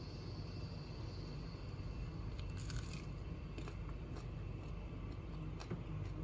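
Someone biting and chewing crunchy fried food: a few short crunches and clicks, the densest cluster about two and a half seconds in, over a steady low hum.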